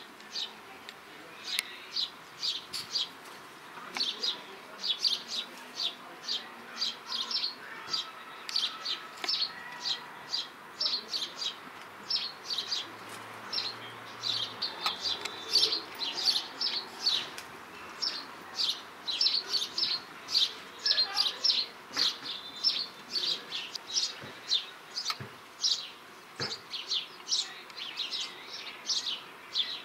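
Small garden birds chirping: a continuous stream of short, high chirps, several a second, without a break.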